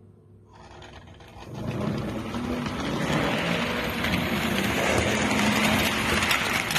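American Flyer model steam locomotive running past close by on the layout, its motor and wheels whirring and clattering on the track. It grows louder over the first second and a half as it approaches, then runs on steadily.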